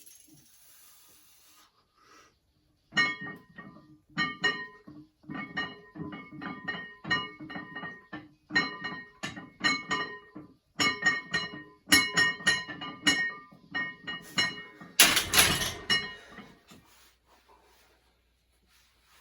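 Metal gym weights clinking and clanking repeatedly during a set, each strike ringing at the same pitches, two to three a second. Near the end comes one louder, noisy crash.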